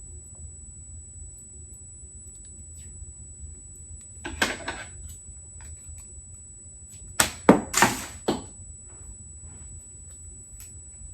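Heat-resistant sublimation tape being pulled off its roll and torn: one short strip about four and a half seconds in, then a quick run of three or four sharper pulls and tears near the end.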